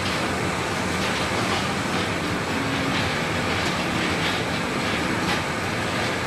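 Coal-slime rotary drum dryer plant running: a steady mechanical rumble with a low hum and a light, irregular clatter.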